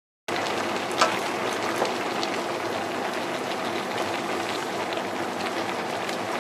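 Sliced bamboo shoots sizzling in a large stainless steel pot while a wooden spatula stirs them, a steady hiss with scattered small crackles and a sharper knock about a second in.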